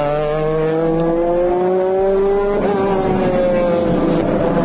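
GT race cars' engines at full throttle, pitch climbing steadily, then a gear change about two and a half seconds in, after which the pitch falls away.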